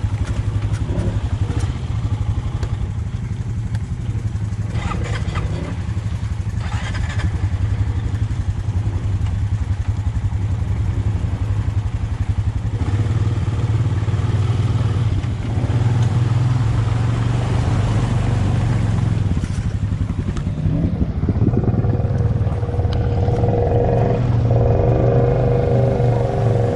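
ATV engine running as it is ridden, steady for most of the stretch, then louder with a higher note in the last few seconds as it is given more throttle.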